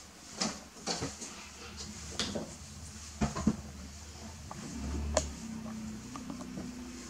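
Scattered knocks and bumps as a baby monkey scrambles and tussles with a large plush toy against a wall, the sharpest knocks about three and five seconds in. A brief low hum sounds near the five-second mark.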